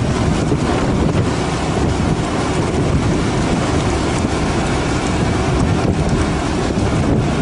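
Steady wind rushing over the microphone aboard a fishing boat, an unbroken roar with no pauses.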